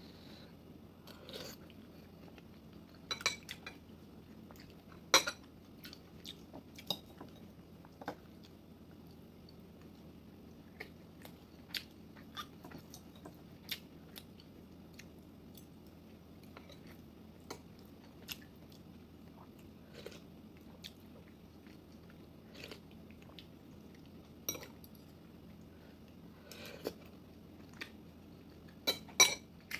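A person eating a meal: chewing, with scattered sharp clinks of cutlery against dishes. The loudest clink comes about five seconds in, and there is a quick cluster of them near the end.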